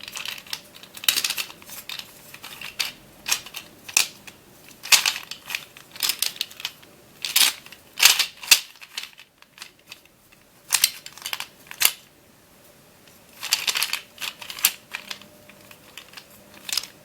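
Plastic Back Spin (Magical Dish) ball puzzle being turned over and twisted to scramble it, its balls rolling and clicking in irregular rattling bursts, with a quieter pause about nine seconds in.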